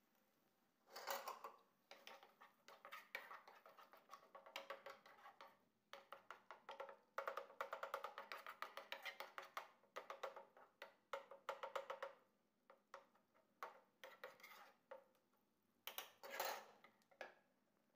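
Faint wooden spoon stirring a thick sauce in a nonstick frying pan. The spoon scrapes and taps against the pan in irregular bursts, with short pauses between strokes.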